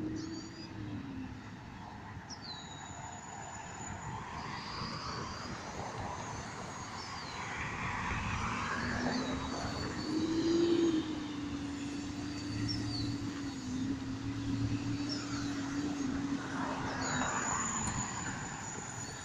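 A distant engine hum swells to its loudest about halfway through, holds steady, then fades. Small birds chirp throughout.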